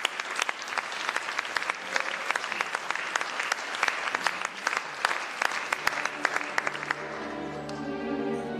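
Theatre audience applauding with dense clapping, which dies away about seven seconds in as the orchestra starts the next dance with sustained chords.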